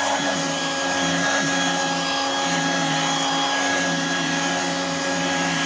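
Royal Dirt Devil Hand Vac model 103 running steadily: its 2-amp motor makes a high, even whine over the rushing air.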